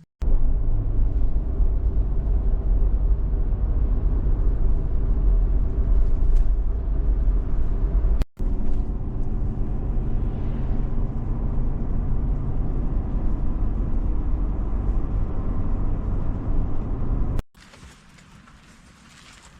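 Car engine and road noise heard from inside a moving vehicle: a steady low rumble with a faint engine hum, in two clips with a hard cut at about 8 seconds. It stops abruptly a couple of seconds before the end.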